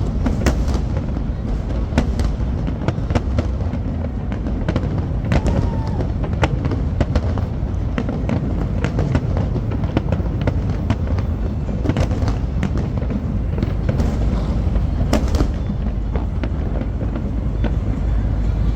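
Fireworks display going off: many sharp bangs and crackles at irregular intervals over a steady low rumble, with crowd voices underneath.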